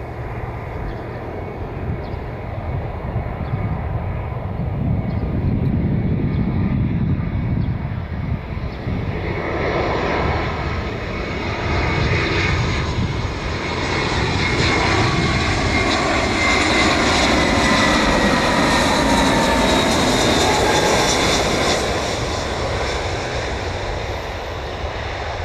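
Airbus A320-family jet airliner on final approach with gear down, its engines rumbling and growing louder as it nears and passes close by. A whine in the engine noise slides slowly down in pitch as it goes past, loudest a few seconds before the end.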